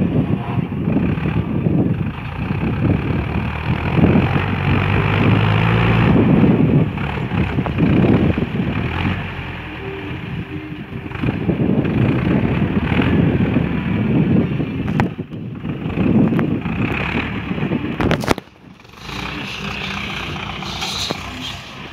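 Diesel farm tractor engine running under load while it pulls a disc harrow through ploughed soil, with wind rumbling on the microphone. The engine sound swells and fades as the tractor moves. It drops abruptly to a quieter level a little after the three-quarter mark.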